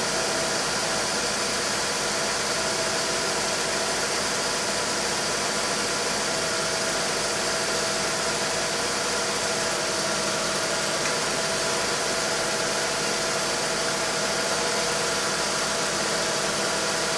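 Mercedes M104.980 3.0-litre inline-six with KE-Jetronic injection idling steadily.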